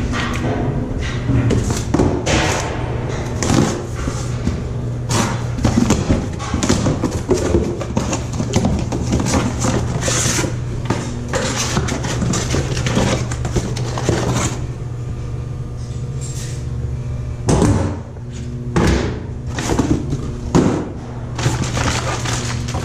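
Steady low machinery hum inside the nacelle of a GE 1.6 MW wind turbine, next to its Hitachi generator. Over it come frequent close knocks, thumps and rustles as a cardboard box is handled, thickest a few seconds before the end.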